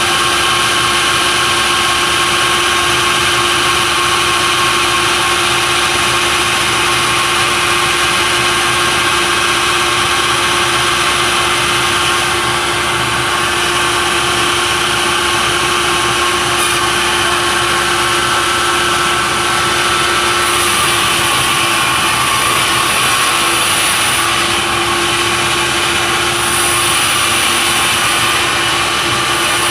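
Sawmill machinery running steadily: a constant mechanical hum with a few held tones and no breaks.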